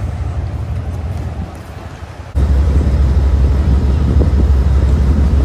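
Wind buffeting the microphone as a steady low rumble, with faint outdoor noise above it. It jumps abruptly louder at a cut about two seconds in.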